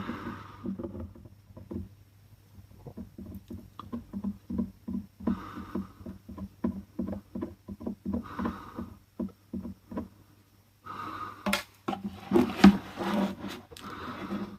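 Soldering iron tip rubbing and scraping over plastic in short, repeated strokes, about two to three a second, smoothing out a melted cable-tie weld on a cracked plastic bottle; a few sharper clicks near the end.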